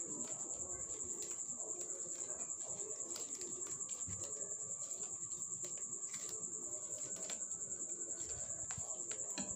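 A cricket trilling steadily, a high pulsing note with many pulses a second, with faint clicks and rustles of flat plastic craft wire being knotted by hand.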